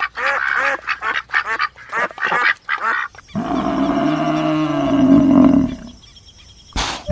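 Animal calls: a rapid run of short pitched calls, several a second, for about three seconds, then one long drawn-out call of about two and a half seconds.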